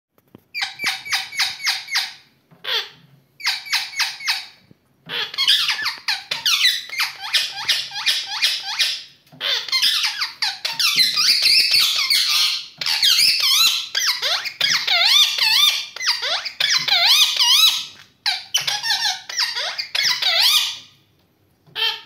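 Indian ringneck parakeets calling loudly: a run of rapid, high-pitched repeated squawks, then long bouts of shrill chatter that warbles up and down in pitch, broken by short pauses.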